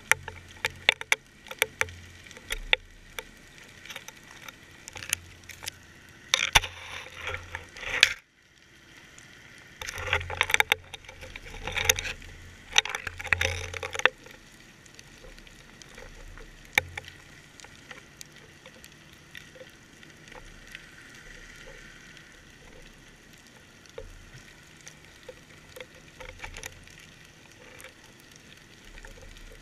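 Muffled clicks and knocks of a GoPro in its waterproof housing on a deep-water fishing rig, as the rig shifts underwater. Denser spells of rattling noise come between about six and eight seconds in and again from about ten to fourteen seconds in.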